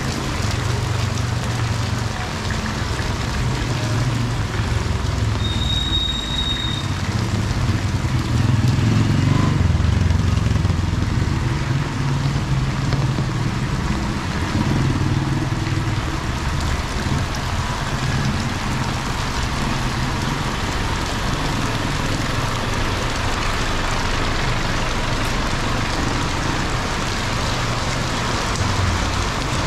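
Steady rain falling on a city street, with road traffic running close by; the engines grow louder about eight to eleven seconds in. A brief high tone sounds once, about six seconds in.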